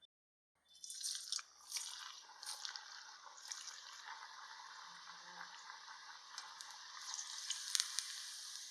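Cauliflower vadas deep-frying in hot oil: a steady sizzle with frequent crackles and pops, starting about half a second in.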